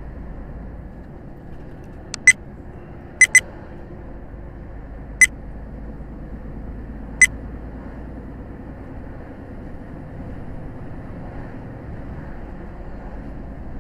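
Steady low road and engine noise inside a moving lorry's cab, with a few short, sharp clicks in the first half.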